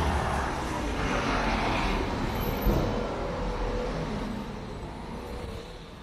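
A car driving past on a city street, its tyre and engine noise fading away over a few seconds, with a short thump about halfway through.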